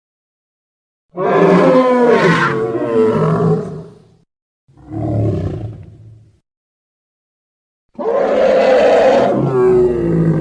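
Sauropod dinosaur roar sound effect: three wavering, pitched calls with silence between them. A long one about a second in, a shorter, weaker one near the middle, and another long one starting near the end.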